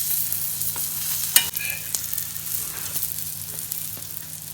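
Chicken murtabak frying in margarine in a pan: a steady hissing sizzle with small crackles. There is one sharp click about a second and a half in.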